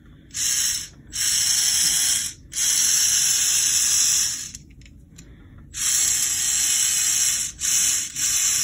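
VEX IQ motor driving small plastic gears along a plastic linear rack track, a whirring gear noise as the lift carriage travels back and forth. It runs in several stretches of half a second to two seconds, with short breaks and a longer pause around the middle.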